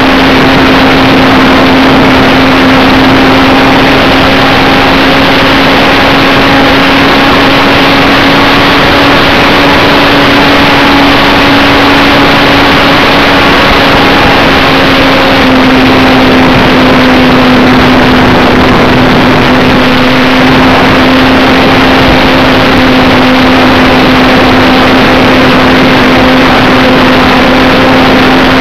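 Onboard sound of a radio-controlled model plane in flight: its motor and propeller drone loudly at a nearly steady pitch, under heavy wind rush on the microphone.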